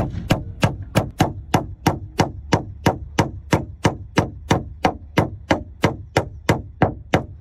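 Hammer strikes in a fast, even rhythm of about three blows a second, each a sharp hit with a brief ringing tail, over a low steady rumble.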